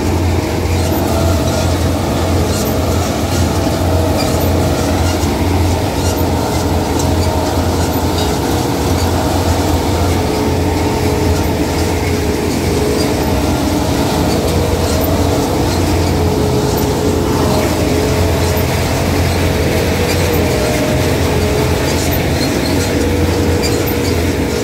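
Groundnut harvesting machine running steadily: a loud, constant low drone with a steady whine over it and scattered light ticks.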